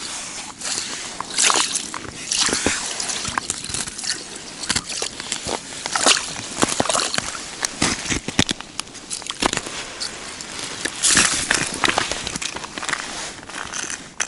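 A hooked fish splashing and thrashing in a slush-filled ice-fishing hole as it is brought up by hand, with wet slushy sloshing and many sharp crackles and clicks of ice crystals.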